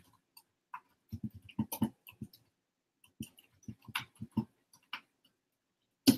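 Computer keyboard keys being typed and a mouse being clicked: irregular taps in small clusters, with one sharper click near the end.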